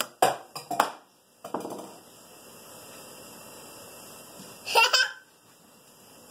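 Toddler giggling: a few short bursts of laughter in the first second and a half, then a brief, loud, high-pitched laugh about five seconds in.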